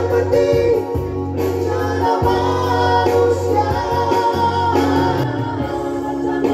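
Men's vocal group singing an Indonesian Christian song in harmony through microphones, over instrumental accompaniment with a steady bass line.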